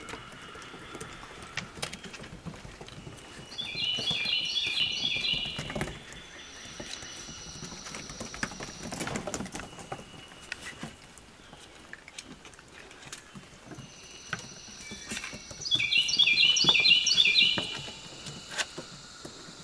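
Golden retriever puppies' paws and claws pattering and clicking on a wooden deck. Twice a bird sings a rapid run of high chirping notes lasting about two seconds, louder than the pattering.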